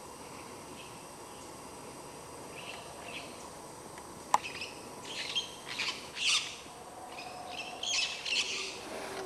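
Jungle birds calling: faint short chirps in the first half, then a run of louder, harsher calls through the second half. A single sharp click about four seconds in.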